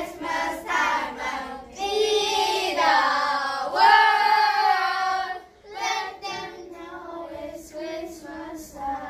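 A group of children singing together without words, a volume-control exercise: the singing swells to its loudest about four seconds in, breaks off, then goes on in softer, shorter notes.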